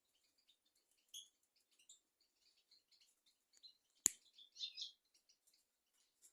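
European goldfinch singing faintly, a run of short high twittering notes and trills, louder for a moment just after a single sharp click about four seconds in.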